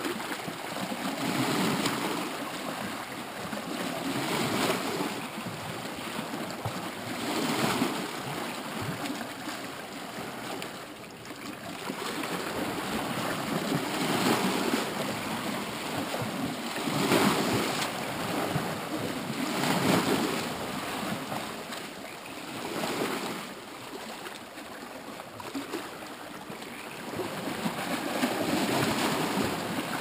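Small sea waves washing and splashing against a rocky shoreline, swelling and falling back in surges every two to three seconds.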